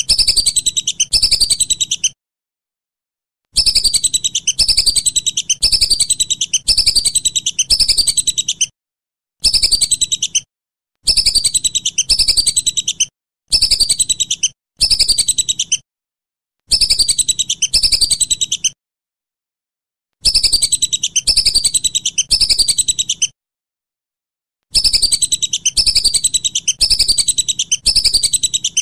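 Whistling duck (belibis) calls: bursts of high, rapid chattering whistles. Each burst is a run of falling notes under a second apart, and the bursts are broken by gaps of dead silence a second or two long.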